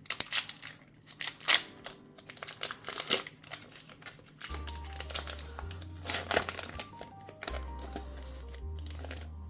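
Foil booster-pack wrapper crinkling sharply as it is handled and torn open. Background music with a steady bass line and a stepping melody comes in about halfway, with a few more crinkles over it.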